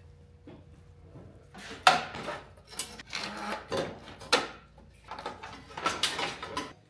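Clanking and knocking of hard parts and tools being handled: about ten sharp knocks and clatters starting about two seconds in, the loudest one first.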